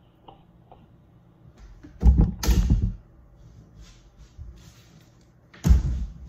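Two loud thumps about three and a half seconds apart, the first running on for about a second.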